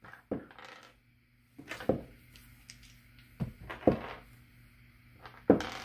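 A small bouncing ball and goat knucklebone pieces knocking on a hard surface during a knucklebones (jacks) game: about six short knocks and taps, irregularly spaced, as the ball is bounced and caught and the bones are scooped up.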